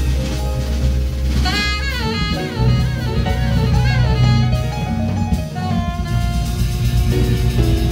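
Recorded instrumental jazz groove: an alto saxophone melody over bass and drum kit, the saxophone bending and wavering through its notes a couple of seconds in.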